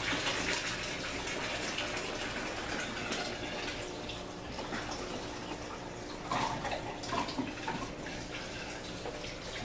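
Water steadily trickling and splashing in an aquaponic system, with a faint steady hum underneath.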